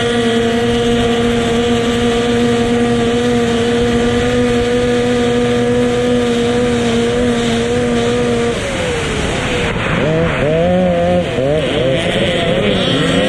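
Racing powerboat engine running at high, steady revs. About two-thirds of the way through, the engine note drops, then rises and falls unevenly as the revs change.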